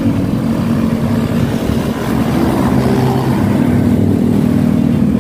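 Road traffic: the steady engine noise of passing motor vehicles.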